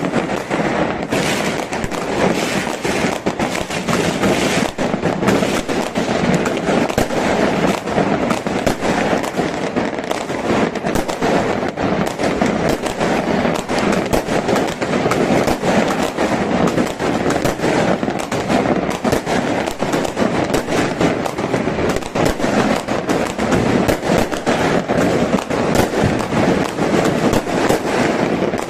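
Fireworks going off in a dense, continuous barrage: rapid crackling and bangs overlapping with no pause.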